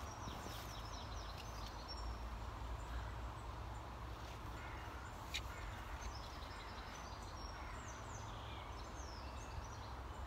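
Songbirds chirping in short runs of high notes, near the start and again in the second half, over a steady low rumble. A single sharp click comes about five seconds in.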